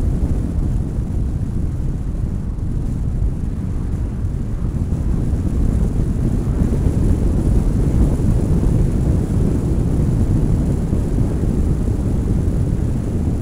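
Steady low rumble of a moving car heard through a camera microphone mounted on the car's outside: wind buffeting the microphone mixed with road and tyre noise, swelling slightly midway.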